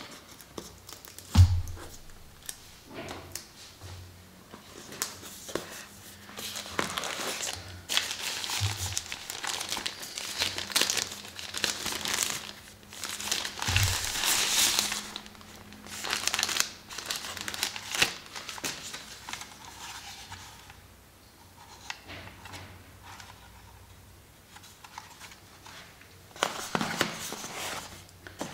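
Unboxing a DJI Mini 3 Pro drone: the cardboard box is handled with a sharp thump about a second in and a few lighter knocks, then the white protective wrap around the drone crinkles and rustles as it is slid off, quieting for a while before more rustling near the end.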